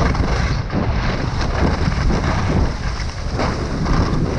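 Wind rushing over the microphone of an action camera as a skier goes fast downhill, mixed with skis hissing over packed snow.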